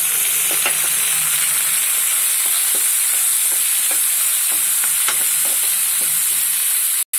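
Chopped tomatoes, onion and capsicum sizzling in hot oil in a non-stick pan, a steady hiss with the scrape and tap of a steel spoon stirring them. The sound drops out for an instant near the end.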